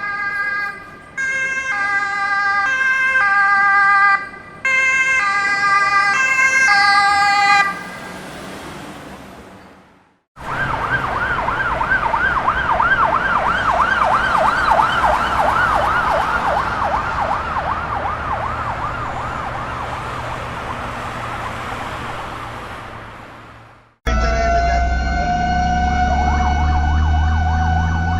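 Three emergency-vehicle siren recordings in turn. First a two-tone siren alternating between two pitches, which fades out; then a fast warbling siren over traffic noise, which fades away. Last a steady wailing siren over a low engine rumble, its pitch starting to fall near the end.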